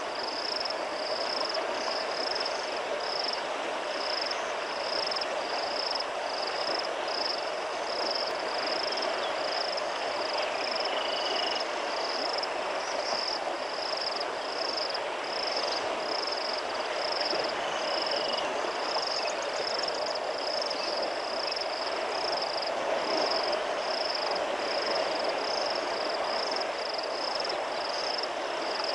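Steady rush of flowing river water, with a high-pitched chirp from a calling insect repeating evenly a little more than once a second.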